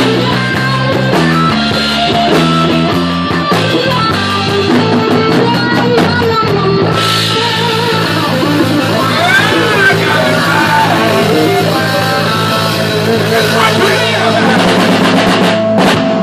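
Live rock band playing: drum kit and electric guitar, with singing over them.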